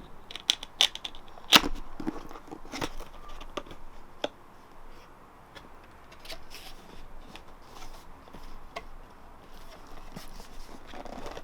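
A cardboard camera box being opened by hand: packaging tearing, crackling and scraping, with sharp clicks and knocks in the first few seconds, the loudest about a second and a half in, then quieter rustling and handling.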